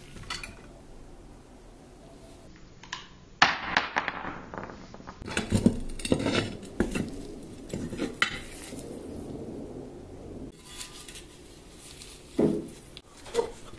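Small metal parts clinking and knocking as a sheet-metal rheostat housing is taken apart by hand, with a screwdriver tapping and scraping on the metal. The knocks come irregularly in short clusters.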